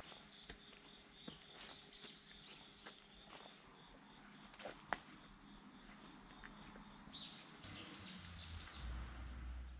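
Steady high-pitched insect song, faint, with short high chirps about two seconds in and again near the end. A few faint clicks and a low rumble near the end.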